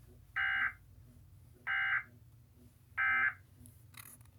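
Three short bursts of Emergency Alert System SAME digital data, each a harsh electronic squawk under half a second long, about a second and a quarter apart. They are the end-of-message bursts that close the EAS monthly test message.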